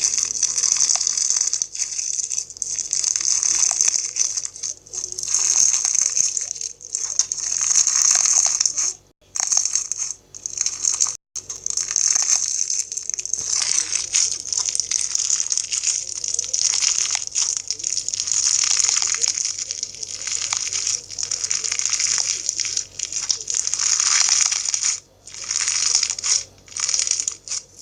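Fishbowl slime, clear slime packed with small plastic fishbowl beads, being squeezed and worked by hand, giving a crackly, crunchy hiss in repeated runs with brief pauses between squeezes.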